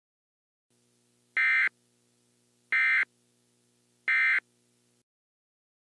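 Emergency Alert System end-of-message signal: three short bursts of high-pitched digital data tones (the SAME 'NNNN' code), evenly spaced about a second and a half apart, marking the end of the alert.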